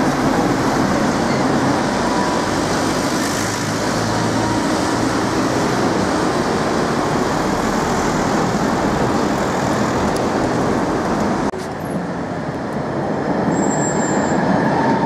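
Road traffic on a busy city street, cars driving past close by in a steady wash of engine and tyre noise. About eleven seconds in it drops suddenly to a quieter, thinner background.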